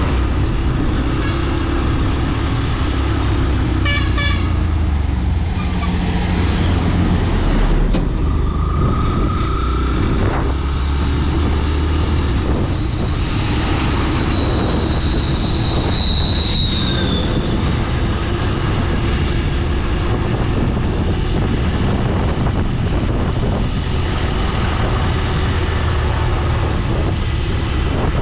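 Steady rumble of a vehicle travelling on the road, with a short horn toot about four seconds in and a few other brief tones later.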